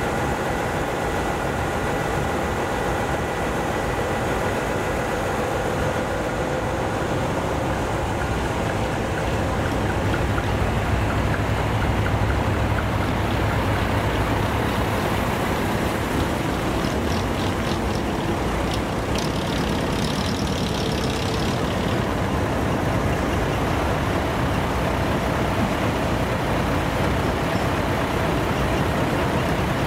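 Diesel engines of parked decorated heavy trucks idling together, a steady drone, with a brief spell of ticking and hiss a little past halfway.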